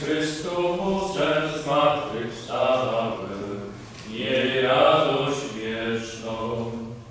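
Slow singing by low-pitched voices, likely men, with held, gliding notes. The singing stops at about seven seconds in.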